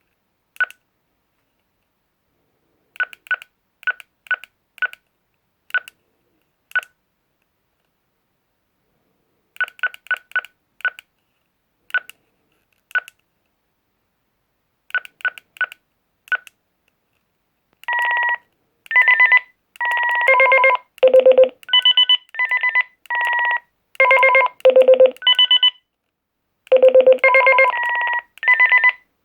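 Anysecu DM960 digital UHF walkie-talkie beeping: first scattered short single beeps, all at one pitch, then past the middle a run of its message alert tones, strings of longer beeps jumping between low and high pitches and sounding louder.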